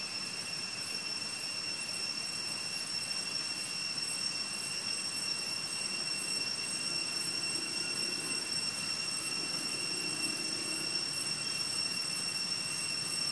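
Steady, high-pitched insect drone in woodland, holding level throughout with no breaks.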